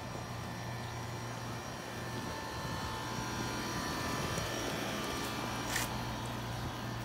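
Outdoor air-conditioner condenser unit running: a steady low hum with a thin whine over it, growing a little louder about two seconds in. A short scuff comes near the end.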